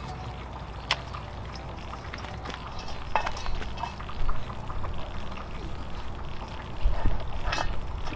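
Live crawfish crawling over each other in a stainless steel bowl, their shells and claws clicking and scraping on the metal, with wet trickling sounds. The clicks come irregularly and are loudest about four seconds in and again around seven seconds.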